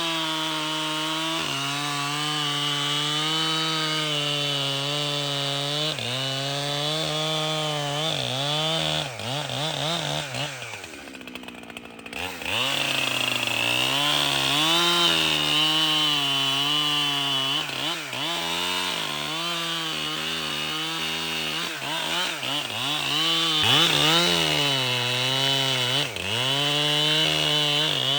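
Two-stroke chainsaw running at high revs and cutting wood, its pitch sagging as the chain bites and recovering between cuts. About ten seconds in it drops back briefly, then revs up and cuts again.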